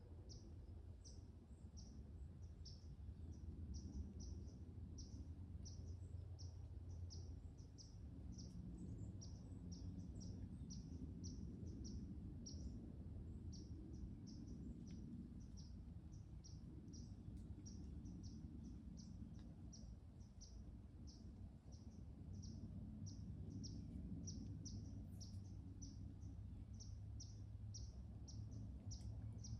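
Short, high chirps repeated steadily about twice a second throughout, over a low, steady rumble of outdoor ambience.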